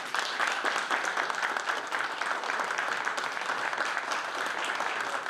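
A small group of people applauding: steady, dense hand clapping.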